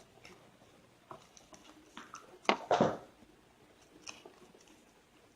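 Plastic wafer wrapper being handled and torn open: a few faint crinkles, then two louder rustles about two and a half seconds in.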